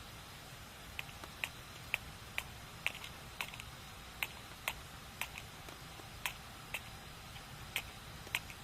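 Wood fire crackling: irregular sharp pops and snaps, one to three a second from about a second in, over a steady low background noise.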